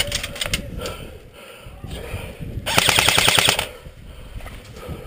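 Airsoft electric rifle firing: a few quick shots at the start, then a rapid full-auto burst of about a second in the middle, the loudest part.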